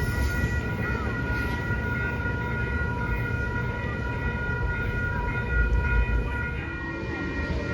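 A train running with a continuous low rumble and several steady high-pitched tones over it. Near the end a lower set of steady tones comes in.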